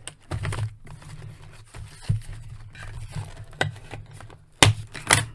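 A plastic toy and its cardboard packaging being handled as the toy is worked free of the twist ties holding it in: scattered clicks, knocks and rustling, with two sharp clicks about half a second apart near the end.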